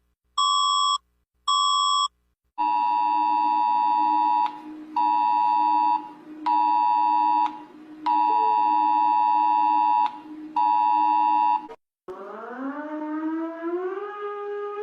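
Emergency-alert alarm tones: three short beeps, then a pulsing two-tone attention signal in the style of an EAS alert. About twelve seconds in, it gives way to a siren-like tone that rises in steps.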